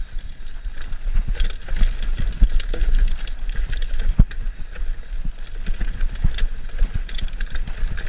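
Mountain bike clattering down a rough dirt and rock trail, heard from a camera on the rider: a steady low rumble from the tyres and wind on the microphone, with many irregular knocks and rattles from the bike as it hits rocks and roots.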